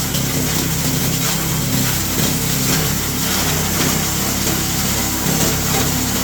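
G-20 chopper-grinder running steadily while grinding coconut shells: a dense, harsh grinding of shell against the steel blades over the machine's steady engine hum.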